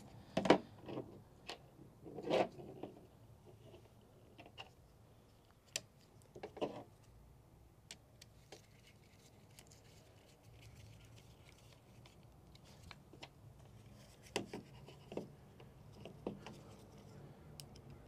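Scattered clicks, taps and scrapes of hard plastic parts being handled. A screwdriver drives small screws as a VW Mk4 window switch panel is fitted into its door-handle trim piece. A few louder knocks stand out among the quieter clicks.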